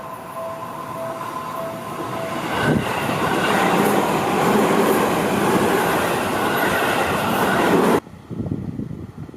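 Japanese level-crossing warning bell ringing in quick pulses, then a Seibu Ikebukuro Line electric train passing close by with loud wheel and rail noise. The train noise cuts off abruptly about eight seconds in, leaving gusts of wind on the microphone.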